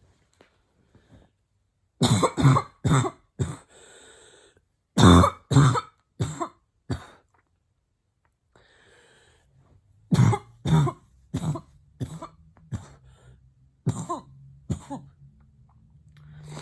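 A woman's barking coughs made with the mouth closed, in three bouts of short, sharp hacks: about four near the start, four more around the middle and a longer run of about eight near the end, with breaths drawn between the bouts.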